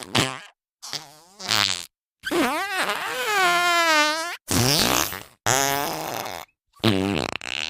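A string of cartoon fart sound effects, one after another with short silences between. The longest, about two seconds, wobbles up and down in pitch.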